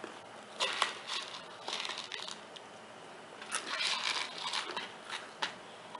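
Spoon scraping and clinking in a bowl of dry Cheerios as they are eaten, in several short spells of crunchy scraping with sharp clicks.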